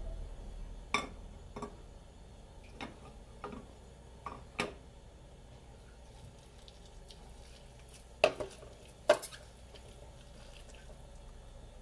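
Scattered clinks and knocks of metal cookware on a gas stove's grate, a small frying pan being handled and set down, with the two loudest knocks about eight and nine seconds in.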